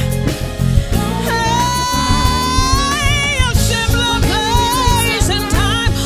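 Live soul band playing, with drum kit, bass and keyboards under women's voices singing; a sung note is held for about two seconds in the middle.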